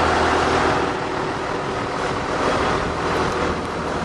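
Wind buffeting the microphone outdoors, over a low steady hum that fades out about a second in.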